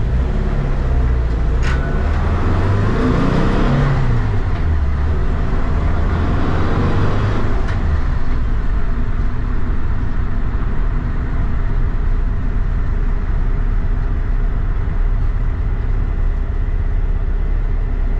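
VW bus's air-cooled flat-four engine on freshly synchronized dual Weber 48 IDA carburetors, heard from inside the cabin while driving. Its pitch rises and drops twice in the first eight seconds as it pulls away, then it settles into a steady cruise with road noise.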